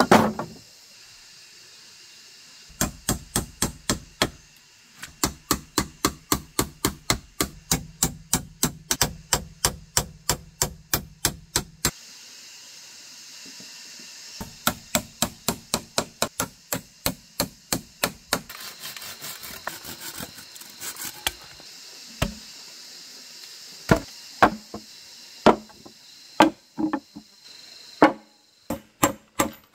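Hammering on wood: runs of quick blows, about three to four a second, broken by short pauses, with scattered single blows near the end.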